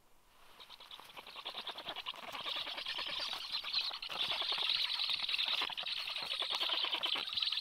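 Black stork nestlings begging for food: a dense, rapid chatter of squeaky high notes that swells over the first few seconds as the adult arrives, then keeps going. Wing flapping is mixed in as the adult lands among the chicks.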